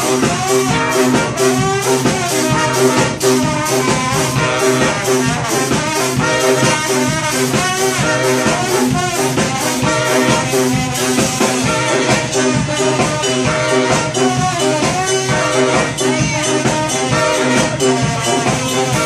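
Live brass band playing an upbeat groove: saxophone, trombone and trumpet over sousaphone and a drum kit keeping a steady beat.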